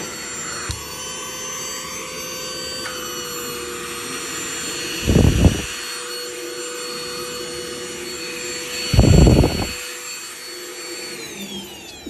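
Kärcher VCH 2 cordless handheld vacuum cleaner running with a steady motor whine. There are two brief louder low rumbles partway through, and the whine winds down near the end.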